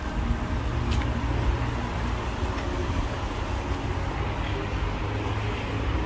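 Road traffic: a steady low rumble of cars on the road.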